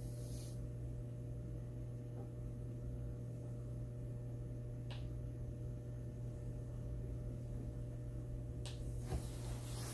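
Steady low electrical hum, with two faint clicks, one about halfway through and one near the end.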